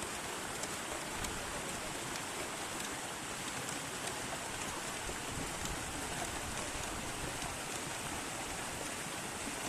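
Steady rushing of river water, even and unbroken, with a few faint tiny ticks.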